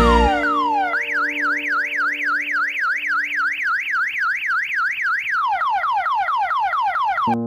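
Odong-odong mini train's electronic siren sound-effect horn, warbling up and down about three to four times a second over a steady low tone. Near the end it switches to quick repeated falling sweeps.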